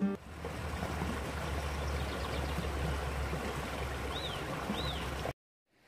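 Small woodland stream running over stones, an even rush of water over a steady low rumble. Two short high chirps come about four seconds in, and the sound cuts off suddenly just before the end.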